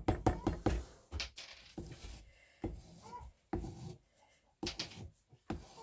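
Spatula stirring thick applesauce in a large metal pan: a quick run of knocks and scrapes against the pan at first, then slower single knocks and wet scrapes with pauses between.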